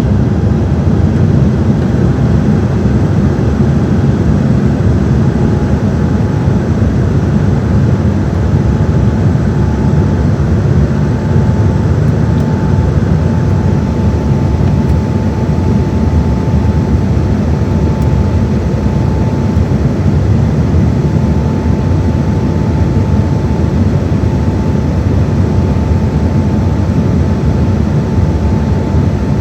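Steady cabin noise of an Embraer 195-E2 airliner in flight: a dense rumble of engine and airflow with a thin whine from the Pratt & Whitney PW1900G geared turbofans that creeps up slightly in pitch in the first ten seconds and then holds steady.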